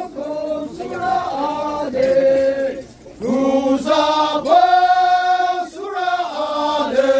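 A group of Naga men chanting a traditional folk song together in unison, in drawn-out phrases with long held notes and a short break about three seconds in.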